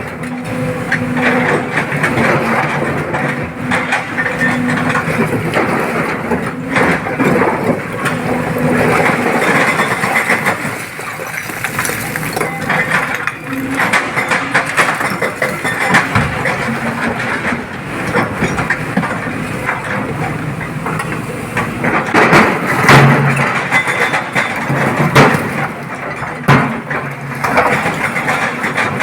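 Excavator engine running under load, with irregular knocks and cracks of stone being scooped and dropped into a dump truck's bed, loudest near the end.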